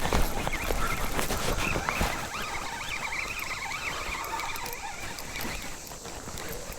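A hooked bass being fought from a kayak: a busy patter of short clicks and ticks from the fishing reel and tackle, with water movement underneath.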